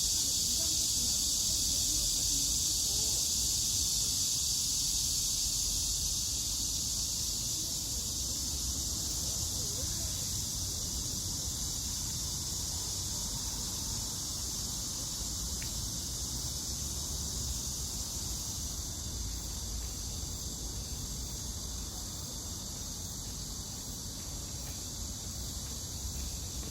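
Insect chorus giving a steady, high-pitched shrill buzz, easing off slightly after the first few seconds.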